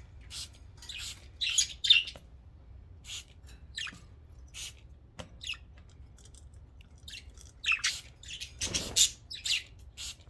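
Budgerigars chirping and squawking in short, scattered calls, mixed with short hissing squirts of a water spray bottle misting them.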